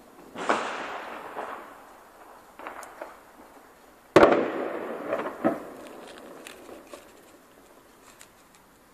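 Vogelschreck bird-scarer firework bangs: one about half a second in, a smaller one near three seconds, and the loudest, sharpest one just after four seconds, each trailing off in a long echo. Several smaller pops follow soon after, then faint distant crackles.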